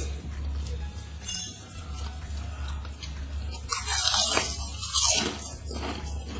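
A person eating close to the microphone: chewing and crunching, with sharp clicks and a loud stretch of noisy eating about four to five seconds in.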